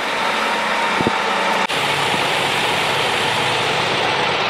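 Diesel engine of a boom delivery truck running steadily while its knuckle-boom crane works. A faint steady whine sits over it in the first part, and the sound breaks off abruptly and resumes about one and a half seconds in.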